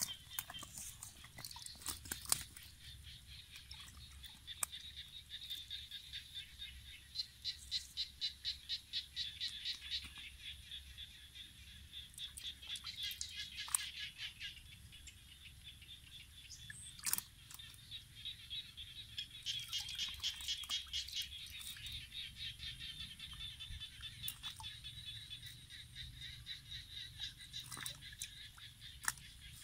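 Frogs calling in fast pulsing trains of high notes that swell and fade several times, over a faint low rumble, with a few sharp clicks.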